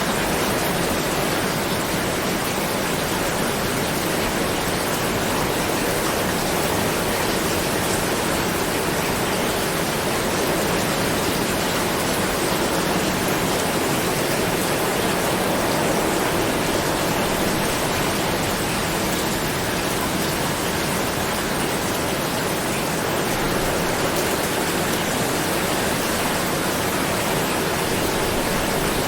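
Steady, even rain, a continuous dense hiss of falling water with no distinct drops or thunder.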